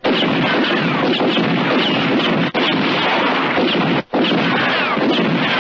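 Battle noise on a western film trailer's soundtrack: dense gunfire and explosions with short falling whines. The din breaks off abruptly for an instant about two and a half and about four seconds in.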